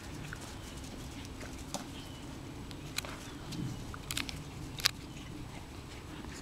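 Outdoor backyard ambience: a steady low background hum with a few faint bird chirps and several short, sharp clicks, the loudest a little before the end.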